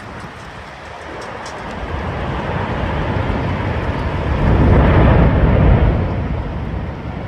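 Strong storm wind rushing and buffeting the microphone in a tornadic thunderstorm. It builds to a loud peak about five seconds in, then eases off.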